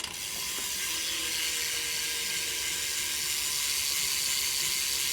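Profile rear hub on a BMX bike, its freewheel ratchet buzzing steadily as the wheel spins freely, the pawl clicks too fast to hear one by one.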